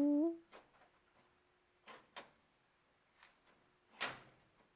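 The last moment of a cat's meow, then a few light clicks and a louder metal knock about four seconds in as the removable coin mechanism is handled and seated back into the cigarette vending machine.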